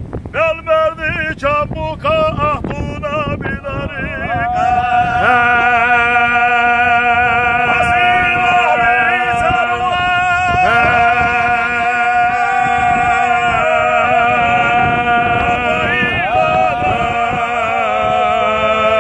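A man singing unaccompanied in a strong, ornamented voice. Quick wavering runs come first, then from about five seconds in long held notes over a low steady drone.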